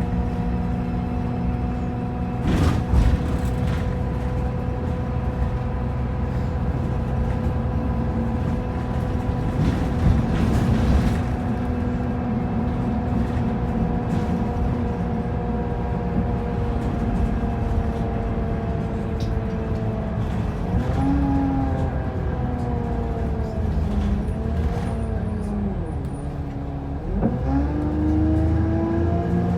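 Optare Versa single-deck bus heard from inside while driving: a steady multi-tone whine over the engine drone. The whine sinks slowly, then dips and rises several times in the last third as the bus slows and picks up speed again. A couple of brief knocks come early on.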